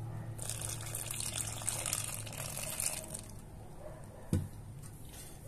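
Water poured into a stainless steel bowl of flour and beaten eggs for batter: a steady pour lasting about three seconds, then a single soft knock a little later.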